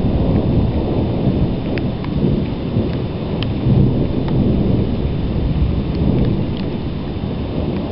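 Low rumbling thunder from a constant electrical storm, a steady dense rumble with a few faint clicks on top.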